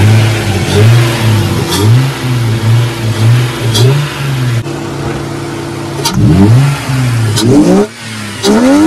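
Lexus GS300's 2JZ-GE inline-six, fitted with an open cone-filter cold air intake and a muffler delete, revved in a string of quick blips. It drops back to a steady idle for a moment in the middle, then takes three more revs near the end.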